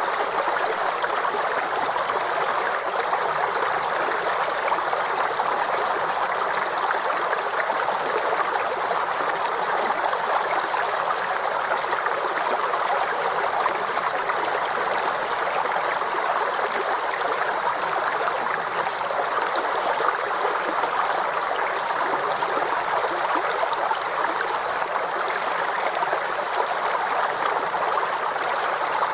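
Forest stream flowing over rocks: a steady, even rushing and babbling of water.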